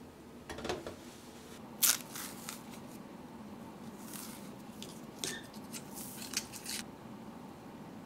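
A banana being peeled by hand and scraped with a small metal spoon: a series of short tearing and scraping sounds, the sharpest a crisp click about two seconds in.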